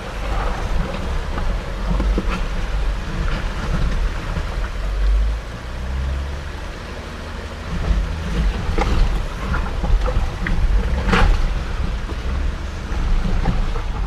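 Jeep Gladiator crawling over a rough, rocky trail, heard from inside: a steady low rumble of engine and tyres with scattered knocks and clunks from rocks and suspension, the sharpest about three-quarters of the way through.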